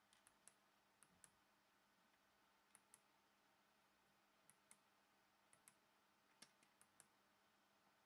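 Pushbuttons on a Miele G 5720 SC dishwasher's control panel clicking as a finger presses and releases them, about a dozen short sharp clicks, mostly in quick pairs, while stepping through the water hardness setting.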